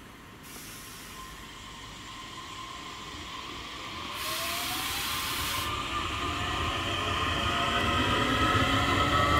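Class 8500/8600 DART electric multiple unit pulling away from the platform: its electric traction drive whines in several tones that rise in pitch and grow louder as the train picks up speed. A loud burst of air hiss lasts about a second and a half, starting about four seconds in.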